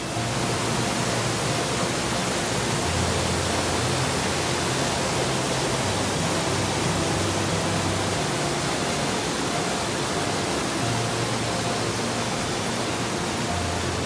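Steady rushing of a waterfall and stream cascading over rocks, with faint background music and its low bass notes underneath.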